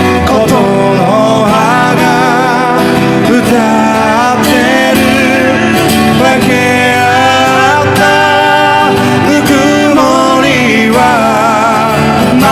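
A voice singing a slow melody with vibrato on the held notes, over guitar accompaniment.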